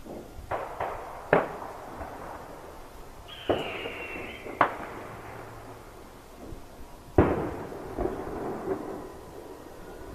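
New Year's fireworks going off: about seven sharp bangs at irregular intervals, each with an echoing tail, the loudest about seven seconds in. A whistling firework's tone slides down for about a second, about a third of the way through.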